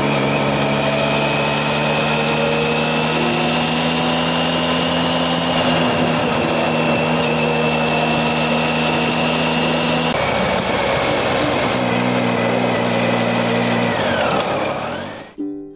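Triumph Tiger 800XC's three-cylinder engine running at a steady cruise under heavy wind rush. The engine note shifts about ten seconds in and falls away near the end as the bike slows.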